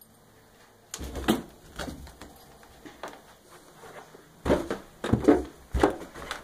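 Irregular thumps and knocks, starting about a second in and heaviest in a cluster from about four and a half to six seconds in.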